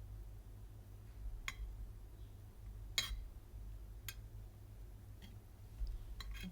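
A few scattered light clicks or taps, about five in all, the sharpest about three seconds in, over a steady low hum.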